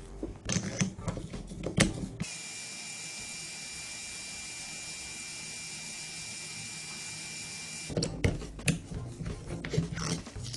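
Sharp knocks and clatter, then a small power tool running with a steady high whine for about six seconds, starting and stopping abruptly, followed by more knocks and clatter.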